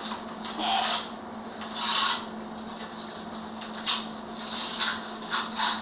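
Paper being handled and torn as a red envelope is opened by hand: about six short, irregular rustles.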